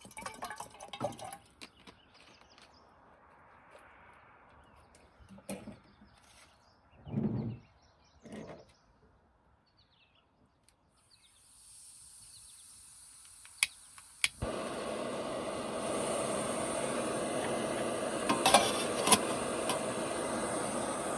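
Clinks and knocks of cookware being handled, then a small pocket camp stove being lit: a thin hiss of gas, two sharp clicks, and the burner catching about fourteen seconds in and running with a steady, loud rushing hiss.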